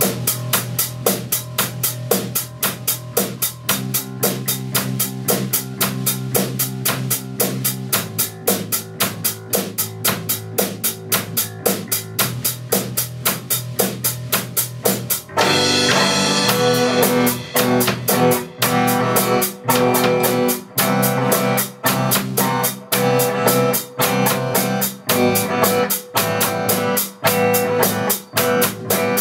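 A small band playing together after a count-in: a drum kit keeping a steady beat of about four strokes a second, with electric bass and electric guitar. About fifteen seconds in the playing grows fuller and brighter.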